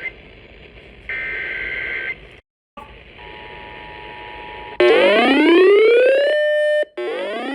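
Emergency Alert System header burst: a steady digital data tone around 2 kHz lasting about a second, followed by a faint steady two-tone attention signal. From about five seconds in, a loud electronic alert tone rises in pitch and holds, then starts rising again near the end.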